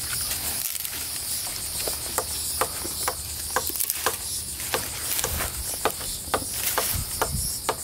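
Insects buzzing steadily in a high, pulsing drone, over a run of short sharp crackles and snaps of twigs as a tree branch is pulled down by hand, growing busier in the second half.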